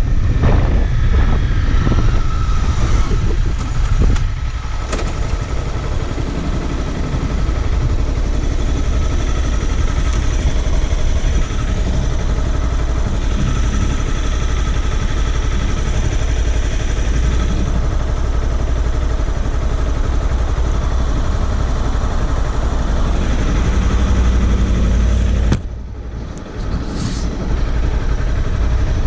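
Sport motorcycle engine slowing from riding speed with wind rushing over the microphone, then idling steadily while the bike stands stopped.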